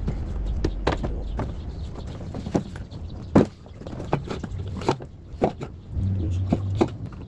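Irregular clicks and knocks, a few sharper than the rest, over a steady low rumble.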